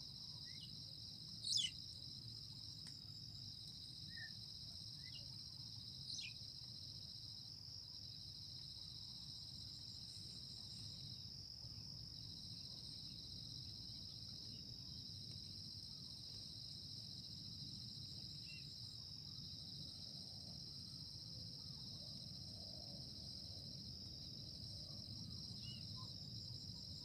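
Steady, high-pitched chorus of insects singing, over a low steady rumble of outdoor background noise. A sharp click sounds about a second and a half in, and a fainter one around six seconds.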